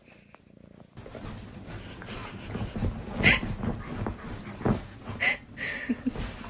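A dog burrowing and rubbing its head into a bed's pillows and sheets: the bedding rustles steadily from about a second in, with a few short dog whines.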